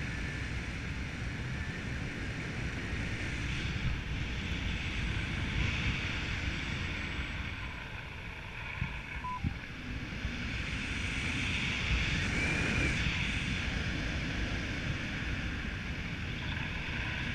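Wind rushing and buffeting over the camera microphone of a paraglider in flight, a steady rush that eases a little partway through and then grows louder again.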